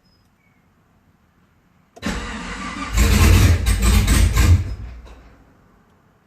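2010 Camaro SS engine being started after an engine install and starting hard: the starter cranks for about a second, then the engine fires and runs briefly before dying away.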